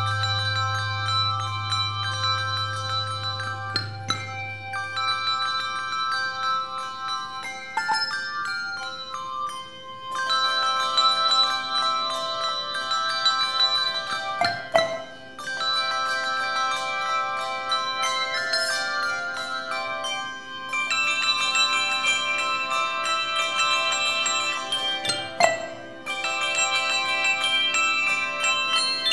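Handbell choir playing a piece: many tuned handbells ringing together in chords and melody, in phrases separated by short breaks.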